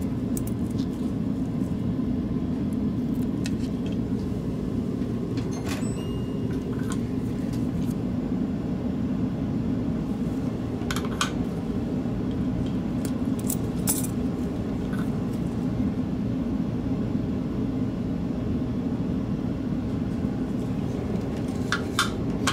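A few light clicks and taps of metal forceps and plastic mouse parts being handled, scattered over a steady low hum.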